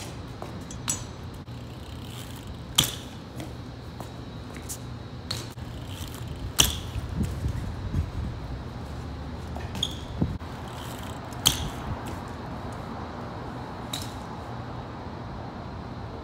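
BMX bike in flatland trick attempts: about eight sharp, irregular clicks and knocks of the bike and its tyres hitting the pavement, over a steady low background hum.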